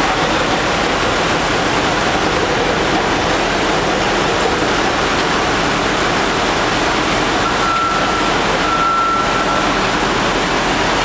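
Loud, steady roar of ship's engine-room machinery. A thin high tone sounds twice in a row, with a short break, near the end.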